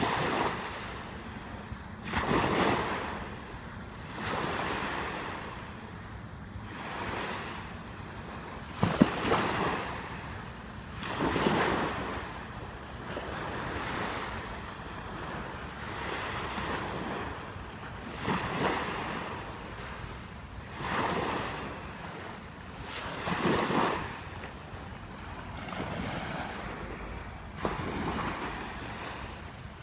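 Small waves breaking and washing up onto a sandy beach, the surf swelling every few seconds, with wind rumbling on the microphone. A single short knock about nine seconds in.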